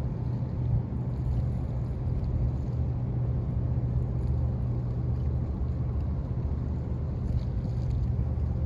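A passing bulk carrier's engine: a steady, low drone that holds unchanged throughout.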